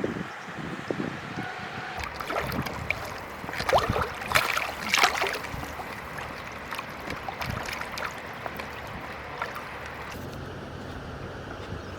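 Water splashing and sloshing in irregular bursts, loudest about four to five seconds in, with small knocks among them.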